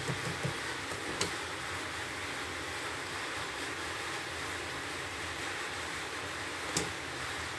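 Steady background hiss with a couple of sharp clicks, about a second in and near the end. There is no motor or stitching sound from the CNY E900 embroidery machine, which does not move at all.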